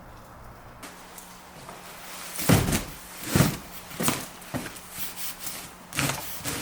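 A series of irregular knocks and thuds, about six of them, starting about two seconds in.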